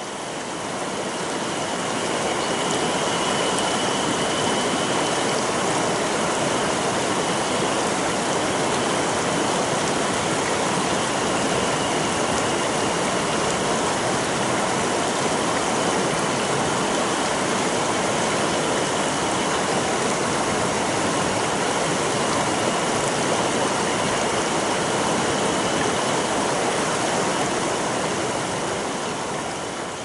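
Shallow river rushing over rocks in small rapids: a steady, dense rush of water. It fades in over the first couple of seconds and fades out near the end.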